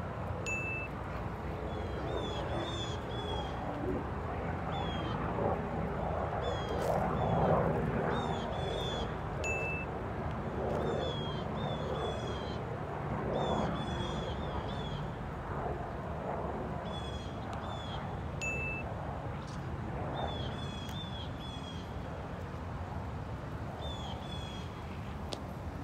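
A flock of common grackles calling: a busy run of short, high chirps with small pitch glides, a short steady whistle about every nine seconds and a couple of sharp clicks, over a low steady background rumble.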